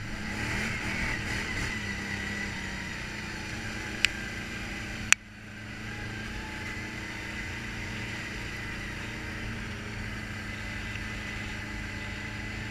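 ATV engine running steadily while riding along a dirt and gravel trail. Two sharp knocks about a second apart come near the middle, the second being the loudest.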